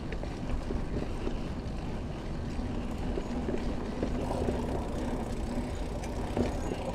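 Mountain bike rolling along a dirt forest trail: steady tyre rumble and wind noise on the handlebar-mounted microphone, with small clicks and rattles from the bike over the ground and a faint steady hum through the middle.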